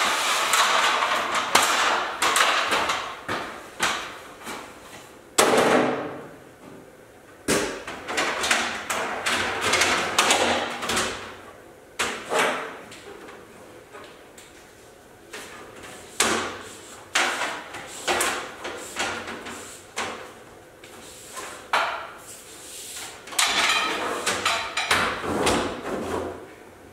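Handling noise from plastic air-line tubing being fed through a length of conduit: irregular knocks, scrapes and rustles, loudest in the first couple of seconds.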